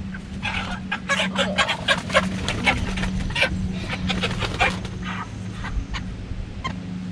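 Meat chickens clucking in a flurry of short, rapid calls while one is caught and carried by hand, upset at being handled. The calls come thickest in the first five seconds and thin out near the end.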